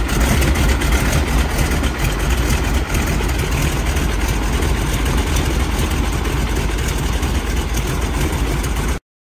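Small propeller plane's engine running steadily, a loud even noise with a strong low hum; it cuts in suddenly and cuts off suddenly near the end.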